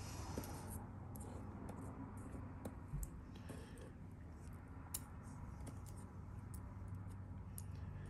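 Faint, scattered light clicks of steel tweezers and small brass lock wafers being picked up and handled, a couple of them a little sharper about three and five seconds in, over a low steady hum.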